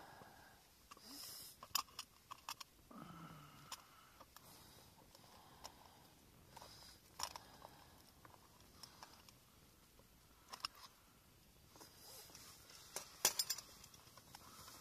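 Faint scattered clicks and light clinks of a stainless steel cooking pot and its lid being handled, with a quick cluster of clicks near the end the loudest. A brief low hum of a man's voice comes about three seconds in.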